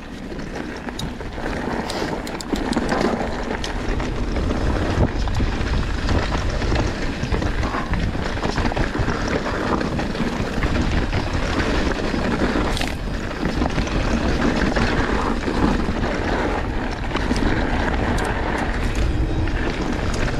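Enduro mountain bike riding down a dirt trail: a steady rush of wind over the microphone, tyres rolling over dirt and rock, and the bike rattling, with scattered sharp clicks and knocks. It builds over the first couple of seconds and then stays loud.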